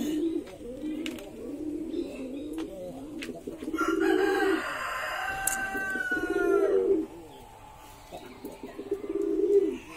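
Domestic pigeons cooing over and over in low, throaty, warbling coos. A rooster crows once about four seconds in, the long call dropping in pitch as it ends about three seconds later.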